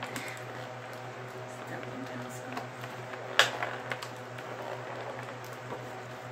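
Small plastic toy parts and packaging being handled while a tiny plastic telescope accessory is taken out of its box: light rustles and small clicks, with one sharp click about three and a half seconds in, over a steady low hum.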